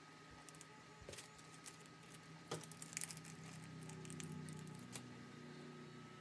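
Faint crinkling of a small plastic zip bag being handled, with a few light clicks of small parts; the loudest crinkles and clicks come about two and a half to three seconds in.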